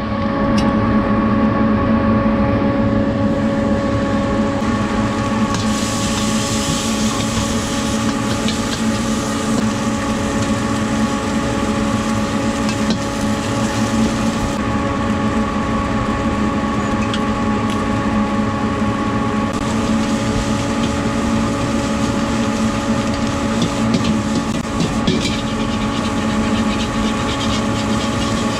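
Stir-frying in a wok over a gas burner: food sizzling in hot oil, loudest about six to nine seconds in, and a metal ladle scraping and knocking against the wok. Under it all runs a loud, steady mechanical drone with a constant hum.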